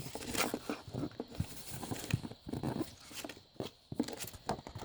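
Paper and packaging being handled and rustled, with irregular crackles and small clicks that start abruptly.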